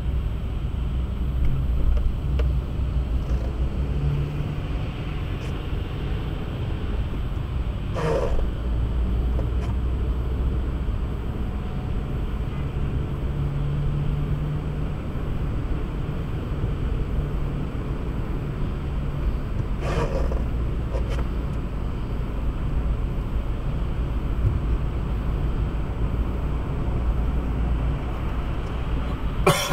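Steady low rumble of a car driving on the road, engine and tyre noise, with a few short knocks about 8 and 20 seconds in and again near the end.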